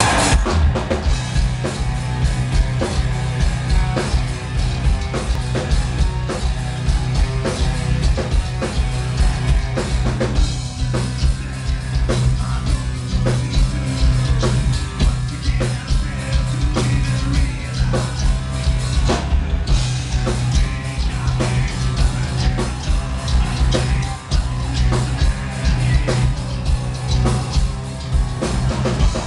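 A metal band playing live: guitars, bass and drums with a steady beat, and a singer's vocals over the top, heard from the crowd.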